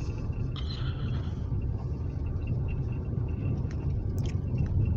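Car driving along a dirt road, heard from inside the cabin: a steady low rumble of engine and tyres, with a few faint ticks.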